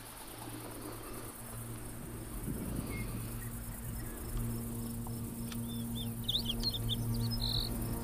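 Insects chirping steadily in the grass, with a small bird giving a quick series of high chirps about two-thirds of the way through. Soft background music with low held notes swells in underneath.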